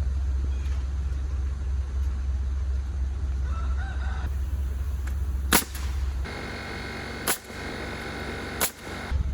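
Three sharp knocks about a second and a half apart, over a steady low rumble; a rooster crows through the last three seconds.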